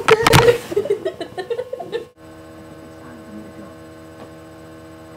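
Loud rustling and handling noise with a voice over it for about the first second, dying away; about two seconds in the sound cuts off abruptly and a steady electrical hum takes over.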